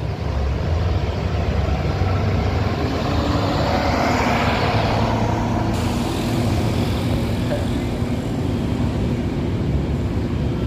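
Road traffic with a motor vehicle passing close by, its engine and tyre noise swelling to a peak about four to five seconds in.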